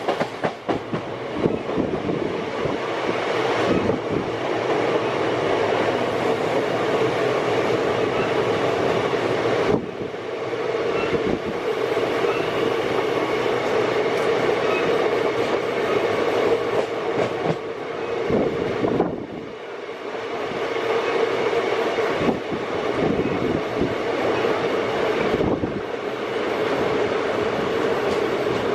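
Express passenger train running at speed, heard from aboard a coach: a steady rumble of wheels on rail with repeated clicks over rail joints, easing off briefly twice.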